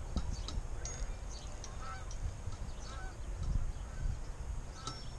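A goose honking several times in short calls, with small birds chirping high above and wind rumbling on the microphone.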